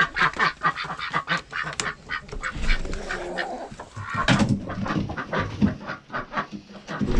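Domestic ducks quacking in a rapid, continuous run of short calls, several birds at once.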